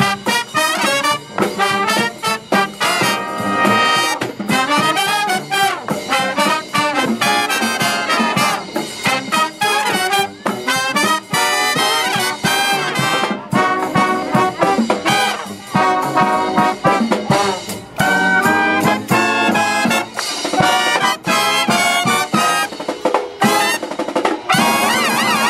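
A marching brass band of trumpets, trombones, saxophones and sousaphones with drums playing a tune; near the end the band settles on a long held chord.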